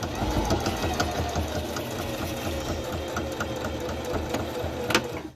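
Domestic single-needle sewing machine stitching a seam steadily, its motor whine slowly falling in pitch, then stopping with a sharp click about five seconds in.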